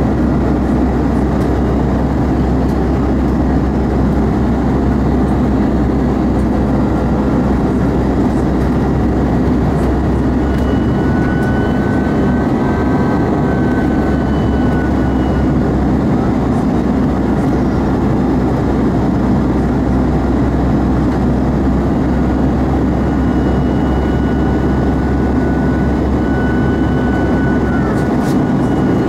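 Steady cabin noise of an Airbus A320 climbing after takeoff, heard from a window seat over the wing: the jet engines' drone and the rush of air. A faint high whine comes and goes twice.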